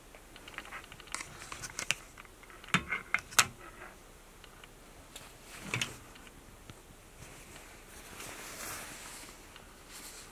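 Jackets on hangers being handled on a clothes rail: a run of sharp clicks and knocks of the hangers in the first few seconds, then a soft rustle of satin fabric later on.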